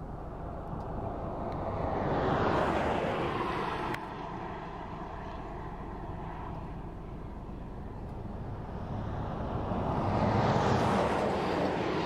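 Two passing vehicles, each swelling up and fading away over a few seconds, over a steady outdoor noise bed.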